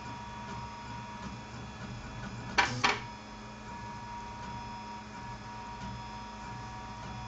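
Prusa RepRap 3D printer running a dry-run print with no filament: its stepper motors whine steadily with several tones at once. A short, loud rasping burst with two quick peaks comes about two and a half seconds in.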